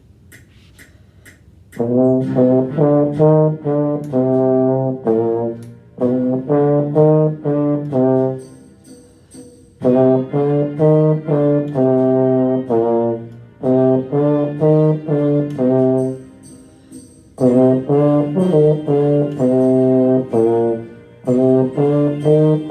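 Trombone playing a blues line in phrases of short repeated notes around C, D, E flat and B flat, after a few clicks of a count-in. Faint high ticks of an accompaniment track sound along with it.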